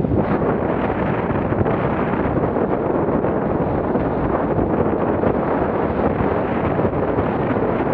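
Steady, heavy wind noise buffeting the microphone, with choppy water splashing against the hull of a small open motorboat.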